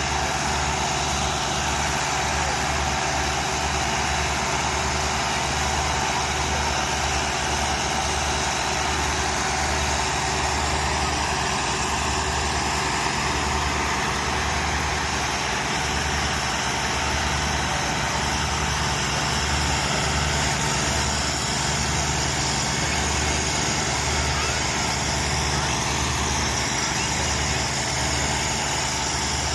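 Several diesel farm tractors, Massey Ferguson and Fiat models, running steadily under heavy load as they pull a loaded sugarcane trolley across soft ploughed ground. The engines keep up a continuous low pulsing throb with no letup.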